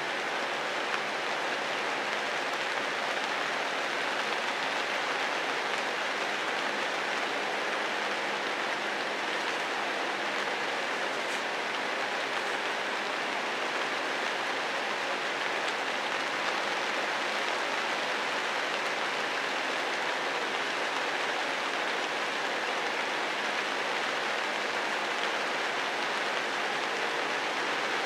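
Steady rain falling on forest foliage: an even, unbroken hiss with no single drops standing out.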